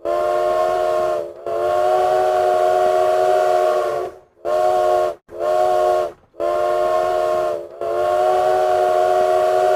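Train whistle sounding a chord of several pitches in a series of separate blasts: two long blasts, two short ones, then a medium one and a long one.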